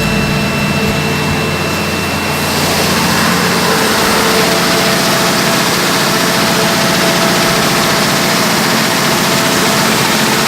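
Isuzu 6BD1 inline-six diesel engine running steadily. About two and a half seconds in it turns a little louder and hissier and holds there.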